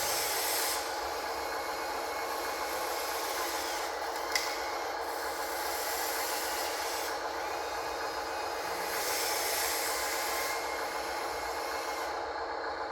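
Electric motors and gearboxes of a radio-controlled construction model running steadily, a high whine of several fixed tones over a rasping hiss, with one sharp click about four seconds in.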